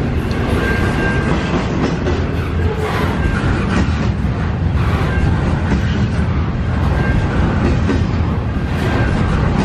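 Double-stack intermodal container train's loaded well cars rolling past close by: a steady, loud rumble of steel wheels on the rails, with a thin high tone coming and going over it.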